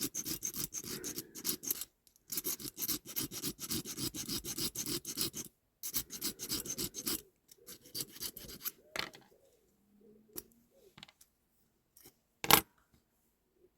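Hand file rasping in quick strokes against the diecast metal of a toy, filing off the head of a pin so the part can come apart. The filing stops about halfway through, with two short pauses along the way. Scattered small handling clicks follow, then one sharp knock near the end.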